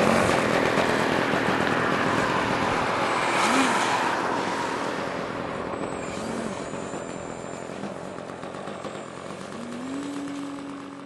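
Electric RC model airplane's motor and propeller running in flight: a steady rushing drone that fades gradually.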